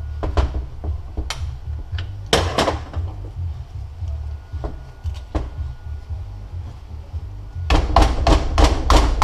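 Metal hand tools knocking and clinking on Mazdaspeed 6 transfer case parts during teardown: scattered single knocks, then near the end a quick run of taps, about five a second. A steady low rumble runs underneath.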